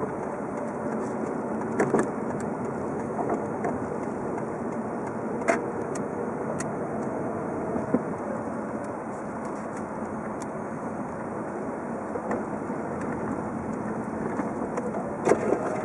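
Car driving: steady engine and road noise, with a few short sharp knocks scattered through.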